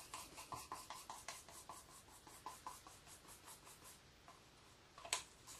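A thin stick scraping paint out of a small paint cup in quick, short, faint strokes, several a second, that die away after about four seconds, followed by a single sharper click near the end.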